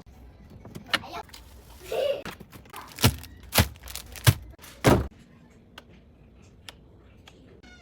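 A run of sharp knocks and clunks, five or so, with the last and loudest about five seconds in, as of containers and jars being set down on refrigerator shelves.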